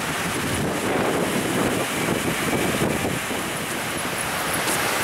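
Steady rushing noise of water falling down a cascading water feature, mixed with wind on the microphone.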